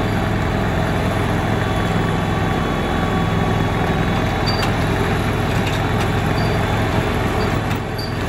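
Petrol engine of a 7.25-inch gauge miniature locomotive, a model of a Victorian Railways T Class diesel, running steadily as it hauls the train, heard from the car right behind it. There is a steady low hum with the noise of the wheels on the track and a few light clicks.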